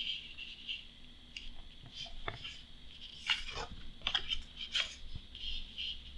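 Light taps, clicks and short scrapes of stiff printed cardboard map tiles being handled and set down on a table, scattered and irregular.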